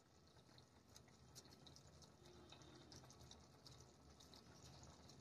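Near silence, with faint scattered ticks and crackle from cooking at the stove: paneer being grated by hand over a pan of simmering gravy.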